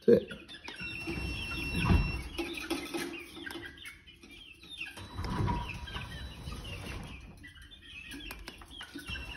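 Chickens clucking and chirping, with a few low thumps.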